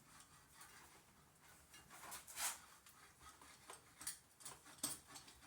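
Faint clicks and brief scrapes of a greased spring-box sub-assembly being handled and set into a motorcycle fork spring box, with a couple of short rustles about two seconds in and a run of small clicks near the end.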